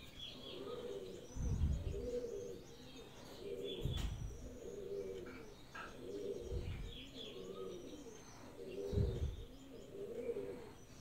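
Pigeons cooing, a low coo repeating about every two to three seconds, with small birds chirping faintly over it. There is a single sharp click about four seconds in.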